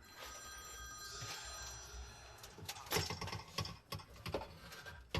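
A telephone ringing: a steady electronic ringing tone, with several sharp clicks or knocks about halfway through.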